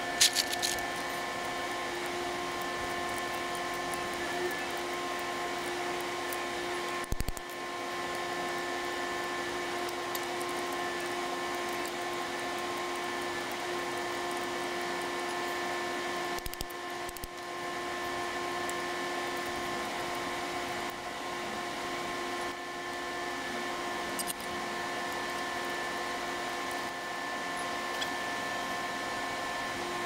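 A steady machine whine of fixed pitch runs throughout, with a few sharp clicks of hand-handled metal parts in the first second.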